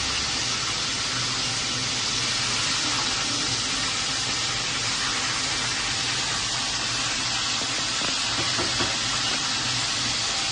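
Tower drip filter coffee maker brewing: a steady hiss of water heating and being pushed up through the machine into the filter basket.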